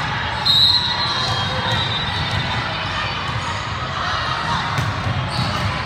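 Echoing gym din during a volleyball match: players and spectators chattering and calling out, with ball thumps on the court floor. A short shrill high tone sounds about half a second in.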